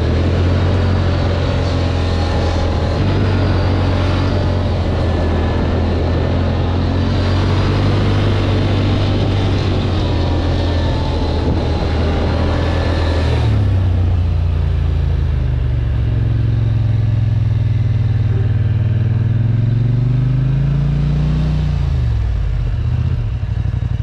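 Polaris ATV engine running steadily while riding, its pitch dipping and then rising again near the end as the throttle changes.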